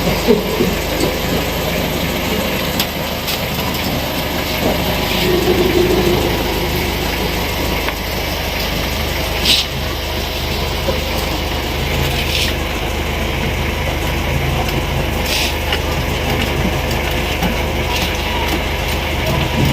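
Hand tools working on the engine: a few sharp metallic clicks and taps over steady workshop noise.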